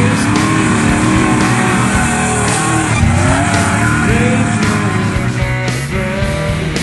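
Race truck engine running hard, its revs rising and falling repeatedly, with a music soundtrack playing over it.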